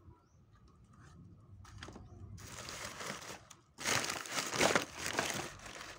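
Crinkling and rustling of plastic being handled. It starts faintly about two seconds in and gets louder about four seconds in.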